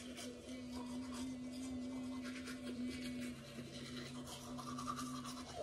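Electric toothbrush humming steadily while someone brushes their teeth, with bristles scrubbing against the teeth.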